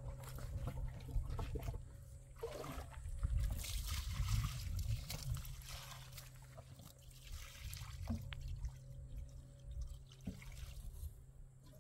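Water poured from a plastic jug into a plastic basin, trickling and splashing onto a blanket as it is wetted for washing. The pouring is heaviest a few seconds in, with a few light knocks of the jug later on.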